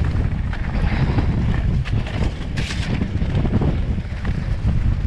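Wind buffeting the microphone while a mountain bike rolls fast down a muddy trail, its tyres running through mud with irregular clicks and rattles from the bike. A short hiss comes about two and a half seconds in.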